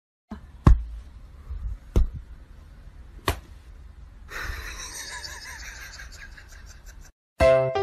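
Three sharp smacks about a second and a quarter apart over quiet room sound, then about three seconds of steady hiss.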